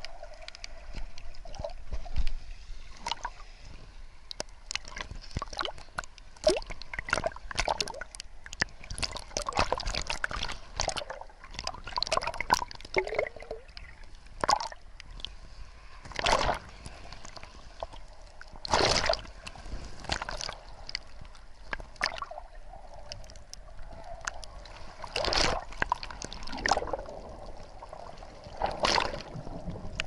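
Sea waves sloshing and splashing over a camera at the water's surface as it dips in and out of the water, with many sharp splashes and knocks. Several louder splashes come in the second half.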